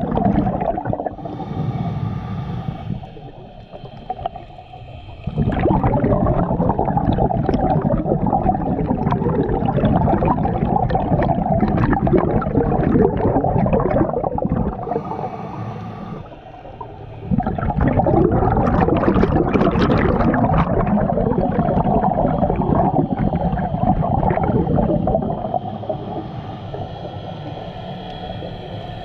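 Scuba diver's regulator breathing, heard underwater: quieter inhales alternate with long streams of exhaled bubbles gurgling out, twice in a slow breathing rhythm.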